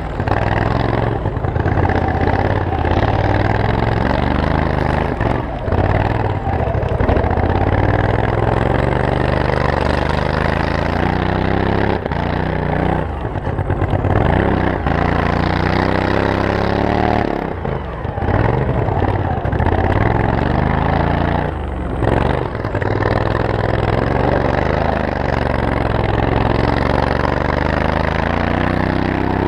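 Turbocharged 26 hp Briggs & Stratton 724cc V-twin lawn mower engine running hard, its revs rising and falling repeatedly, with several short drops in between.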